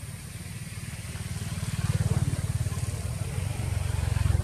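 A motor vehicle engine, like a motorbike's, running with a low, rapid pulse. It grows louder about two seconds in and again near the end.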